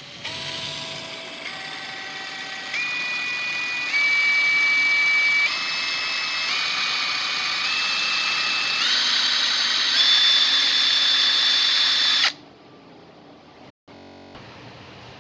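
Ingco 20V brushless cordless impact wrench running free with no load, a steady whine with no hammering. Its pitch and loudness step up several times as the motor speed rises, then it cuts off sharply near the end.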